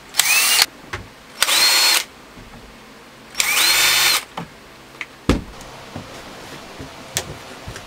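Cordless drill driving mounting screws: three short runs, each a whine that rises in pitch and then holds steady. A few faint knocks follow.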